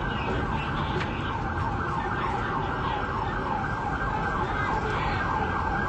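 Emergency vehicle siren in a fast yelp, its pitch sweeping up and down several times a second without a break, over a steady low street rumble.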